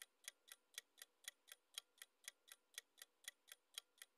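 Faint clock-tick sound effect for a quiz countdown timer: short, evenly spaced ticks, about four a second.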